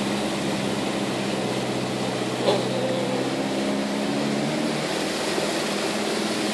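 Suzuki Vitara's engine running at low revs inside the cabin while it wades through floodwater, a steady hum over an even hiss. There is a short sharp sound about two and a half seconds in, and the engine hum fades out near the end.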